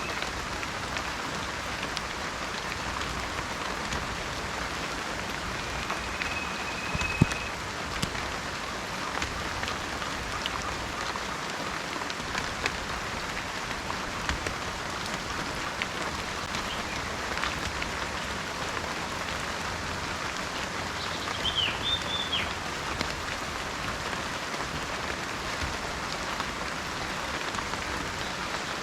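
Steady heavy rainforest rain falling. A bird gives a short, level whistle about six seconds in and a quick burst of chirps about two-thirds of the way through, and one loud drop ticks near seven seconds.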